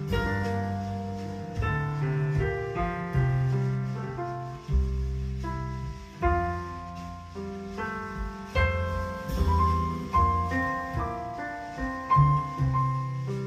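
Piano music, a melody with chords over bass notes, played back through a pair of Jensen CS315 loudspeakers and heard in the room.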